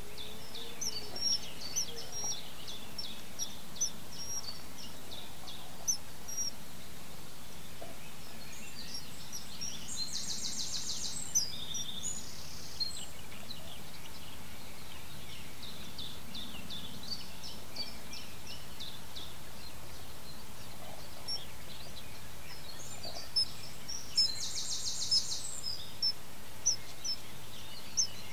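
Birds calling: scattered short, high chirps throughout, with two fast trills, one about ten seconds in and another near the end, over a steady background hiss.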